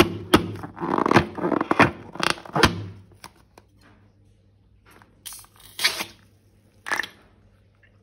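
Close handling noises of balloons and slime: a quick run of clicks, taps and short scrapes over the first three seconds, then a few brief rustles later on.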